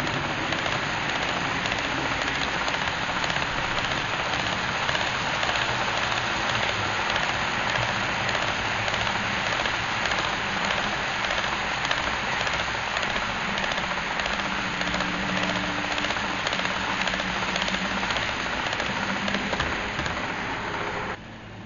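Model coal train's hopper cars rolling past on model track: a steady, dense rattle of small wheels on rail, like rain. A low hum joins near the end as the rear locomotive comes by, and the rolling noise cuts off sharply about a second before the end.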